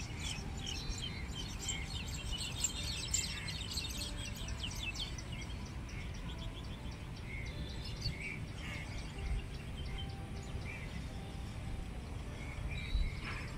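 Many small birds chirping, thick and overlapping for the first few seconds and then thinning to scattered calls, over a steady low background rumble.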